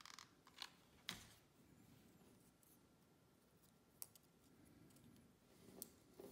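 Near silence with a handful of sharp clicks and light taps, the loudest about a second in, from small cardboard pieces and a hot glue gun being handled on a tabletop.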